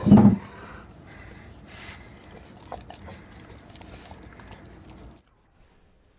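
A dog licking and smacking at peanut butter on a metal spoon: wet clicks and smacks over a low rustle. It opens with a brief loud vocal sound, and the audio cuts off about five seconds in.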